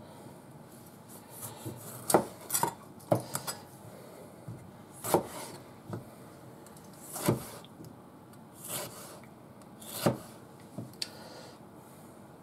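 Knife cutting salad vegetables on a cutting board: irregular single chopping strokes, one every second or two, with some rubbing and scraping between them.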